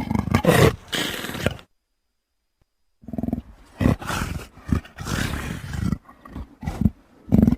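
Indian leopard growling in two bouts: a short burst of rough calls at the start, then about a second and a half of silence, then a longer run of rough, pulsing growls to the end.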